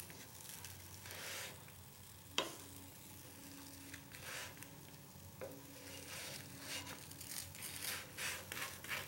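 A metal spatula scraping and tapping on a hot tawa as a rice-flour patisapta is slowly folded over, with a sharp tap about two and a half seconds in. Underneath is the faint sizzle of the crepe on the griddle.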